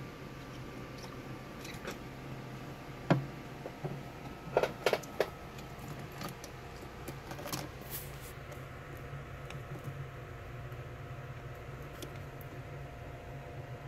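A steady low hum with several sharp clicks or taps over it: one loud click about three seconds in, a quick run of three about a second and a half later, and a few fainter ones after.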